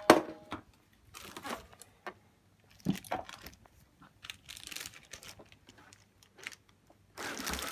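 A sharp click, then scattered short rustling, crinkling and knocking handling noises with quiet gaps between them, thickening into a denser rustle near the end.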